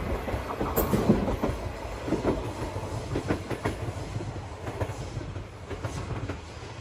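Renfe Civia class 463 electric multiple unit running away along the track, its wheels clacking over the rail joints at an irregular rhythm. The rumble fades steadily as it goes.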